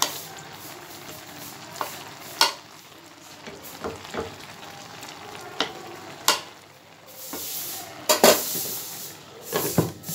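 A metal slotted turner stirring and breaking up raw minced beef in a pan of simmering broth, with sharp clicks and scrapes against the pan over a steady bubbling hiss. The loudest knocks come about 8 s in, and a glass lid clinks onto the pan near the end.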